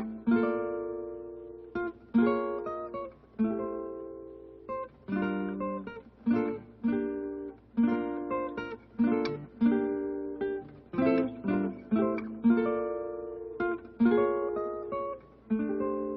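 Solo acoustic guitar playing a slow, gentle melody: single plucked notes and chords, each left to ring and fade before the next.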